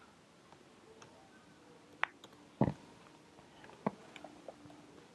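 Faint, irregular clicks of keys being typed on a computer keyboard, with one louder knock about two and a half seconds in.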